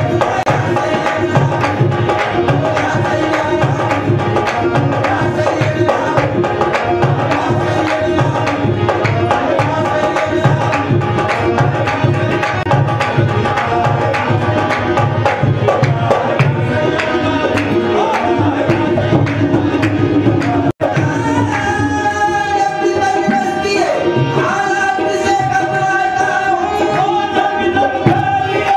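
Qawwali music: two harmoniums play the melody over a fast, even hand-drum beat on a dholak, with hand-clapping. About two-thirds of the way through, the sound drops out for an instant; after that the drumming thins and the harmoniums hold long notes.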